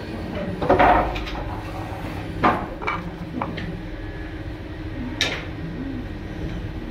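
Thin wooden templates knocking and clattering against a wooden plank as they are moved and set down: a louder clatter about a second in, then a few single sharp knocks, over a steady low hum.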